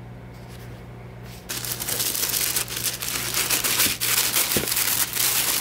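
Tissue paper rustling and crinkling as hands fold it back from a box's contents, starting about a second and a half in. A low steady hum sits underneath.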